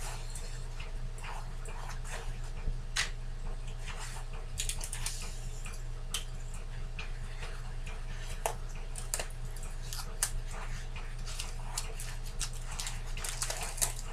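Paper towels crinkling and rustling as they are folded and taped, with scattered small clicks and ticks from handling a roll of Scotch tape. A steady low electric fan hum runs underneath.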